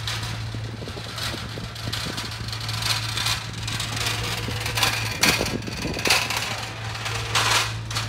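Seaside ambience: a steady low engine hum, as of a ship, under repeated short rushes of breaking waves, the strongest a little past the middle and near the end.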